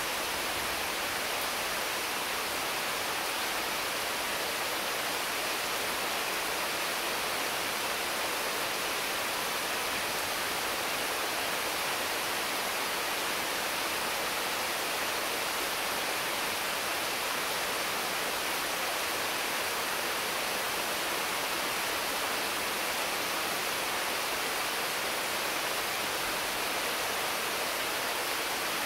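Heavy rain falling steadily on mango, papaya and other trees: an even hiss with no single drops or other sounds standing out.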